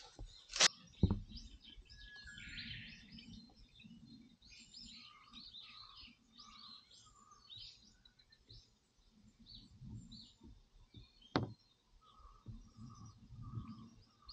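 Birds chirping and calling, with a repeated call of about five short, even notes heard twice. Under it is low rustling or handling noise, with a few sharp knocks near the start and one about eleven seconds in.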